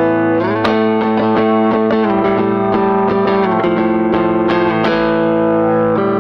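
Background music led by an electric guitar played through effects: sustained chords with picked notes, changing chord about half a second in.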